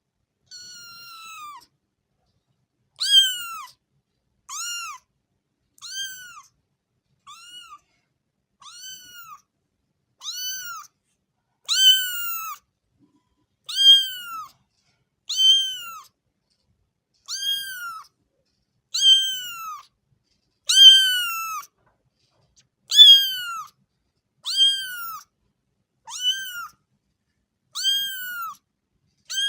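A kitten meowing over and over: high, thin calls, each rising and then falling in pitch, about one every one and a half to two seconds, with silence between them.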